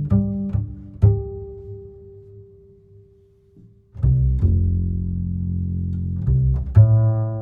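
Background music of low, deep notes, some struck sharply and some held, that dies away to near quiet in the middle and starts again about four seconds in.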